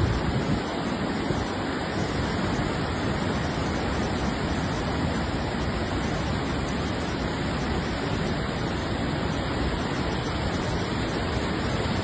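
A river in flood, its fast brown floodwater rushing as one steady, unbroken noise.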